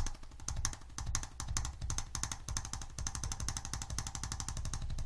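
Arthrostim handheld electric adjusting instrument rapidly tapping along the patient's spine in an even, machine-gun-like rhythm of sharp clicks, stimulating the muscles' proprioceptive fibres.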